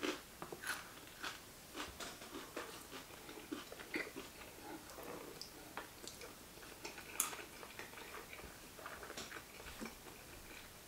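Close-miked chewing of sushi: soft, wet mouth clicks and smacks coming irregularly, several a second, as two people eat salmon nigiri and rolls.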